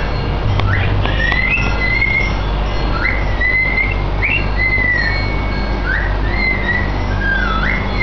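Cockatiel whistling a string of short tuneful phrases, each a quick rising slur into a held note.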